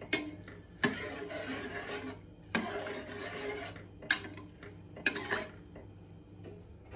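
Metal spoon stirring glutinous rice and coconut milk in an enamel saucepan: a steady scraping swish, with about five sharp clinks of the spoon against the pan.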